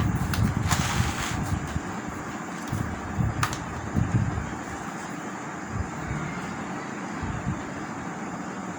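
Steady low rumble and hiss of background noise, with a few light clicks about a second in and again about three and a half seconds in.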